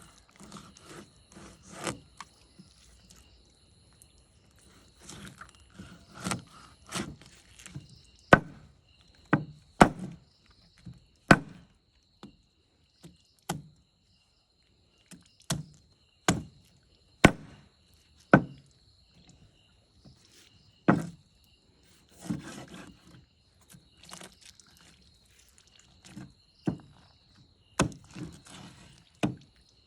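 A heavy knife chopping through fish onto a wooden block, with sharp single chops at irregular intervals, often a second or two apart. Some softer scraping of the blade along the block comes between the chops.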